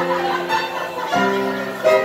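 Live upright piano music, the chords held and changing twice.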